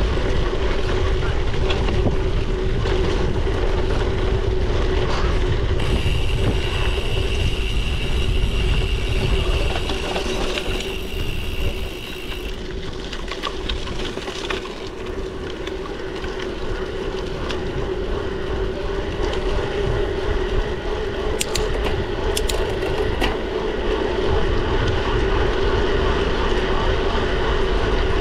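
Bicycle riding heard from an action camera: wind rumbling on the microphone over tyre noise, with a steady hum throughout and a few sharp clicks about three-quarters of the way through.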